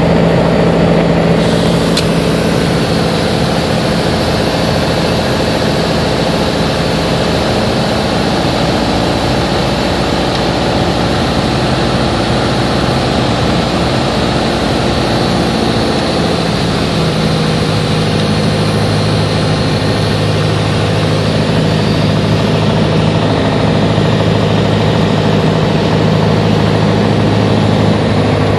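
Single-engine propeller airplane's engine and propeller droning steadily, heard from inside the cockpit during the landing approach. The engine note changes about two-thirds of the way through.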